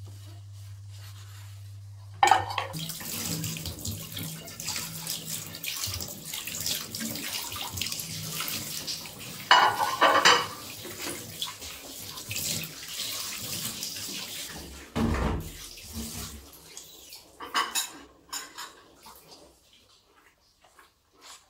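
A low steady hum, then from about two seconds in a kitchen tap running hard into a stainless steel sink while dishes are rinsed, with a few clatters of plates and a thump. The water stops about three-quarters of the way through, leaving scattered clinks.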